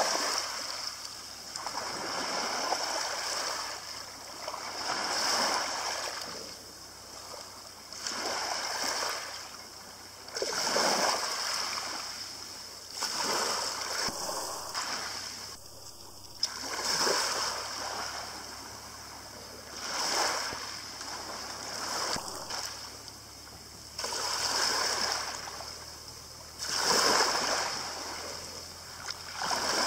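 Small waves lapping on a pebble beach. Each one washes in over the shingle and draws back, swelling and fading about every three seconds.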